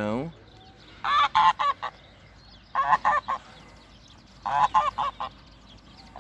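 Geese honking in three short bouts of quick, repeated calls, each bout a rapid run of four to six honks.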